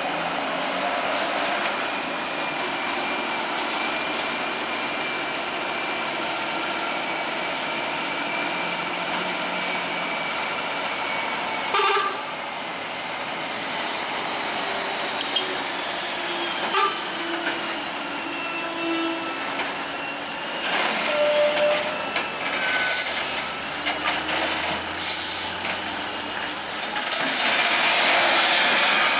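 DAF heavy trucks running on the road, a steady mix of diesel engine and road noise. There are a couple of short knocks in the middle and bursts of hiss near the end.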